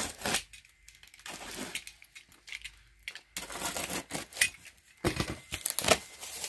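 Utility knife slicing through packing tape and cardboard on a shipping box: short bursts of scraping and tearing, with a few sharp clicks in the second half.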